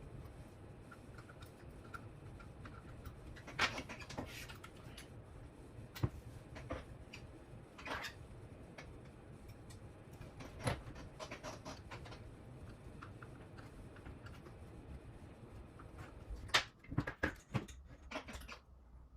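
Scattered light clicks and taps of small parts and wiring being handled on a workbench, with a quick run of clicks near the end, over a steady low hum.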